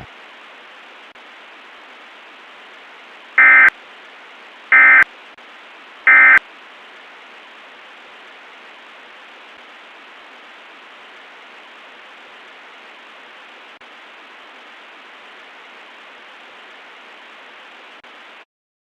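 Three short bursts of Emergency Alert System data tones, the end-of-message code that closes an EAS alert, about a second and a half apart. They sit over a steady radio-static hiss that cuts off suddenly near the end.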